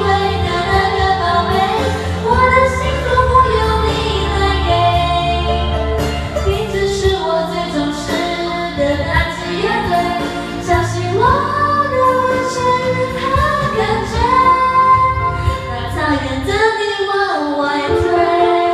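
Two women singing a Chinese-language pop song into karaoke microphones over the machine's backing track. The backing's bass drops out near the end while the singing carries on.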